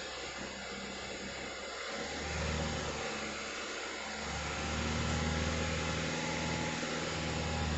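Hyundai i20 engine revved while parked: idling at first, then a short rev about two seconds in, then a longer rev held through the end.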